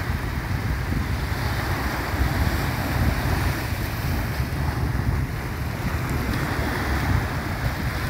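Small sea waves washing onto a sandy shore, with wind buffeting the microphone in a steady low rumble.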